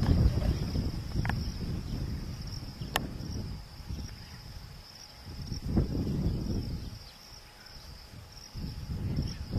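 A steady, high insect chorus buzzes throughout. Under it, a low rumbling noise is strongest at the start, fades, and swells again briefly about six seconds in.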